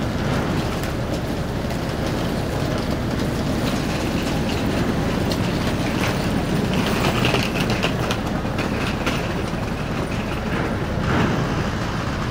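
Steady low rumble of the car ferry Okesa Maru's machinery as it berths, with scattered clanks and a brief higher squeal about seven seconds in.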